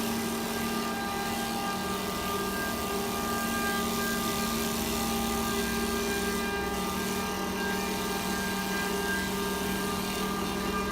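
CNC wood lathe running: a steady motor hum with a high hiss over it.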